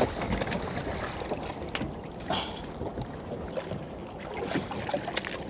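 Water sloshing and splashing against a small fishing boat, with a few light knocks scattered through it.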